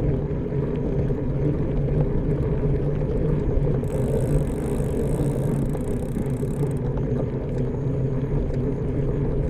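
Steady low rumble of a bicycle ride along a road, with light rattles. A faint high hiss joins for a few seconds in the middle.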